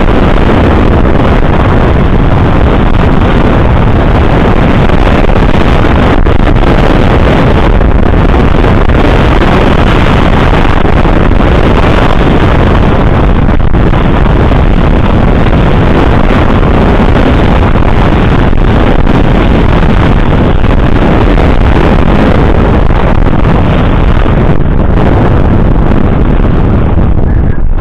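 Loud, steady wind noise buffeting the microphone, a constant rushing with no breaks, typical of riding a bicycle into the wind.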